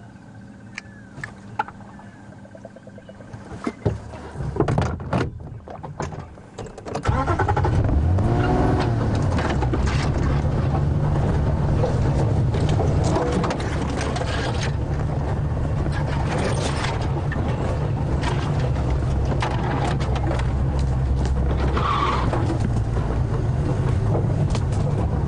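Safari game-drive vehicle's engine running steadily as it drives, coming in suddenly and loud about seven seconds in after a quieter stretch with a few knocks.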